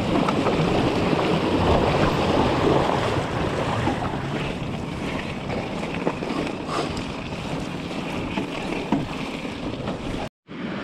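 Mountain bike tyres splashing through a shallow rocky stream, with wind buffeting the microphone. After about four seconds this gives way to a steadier rush of tyres rolling on a gravel track, and near the end there is a brief total dropout.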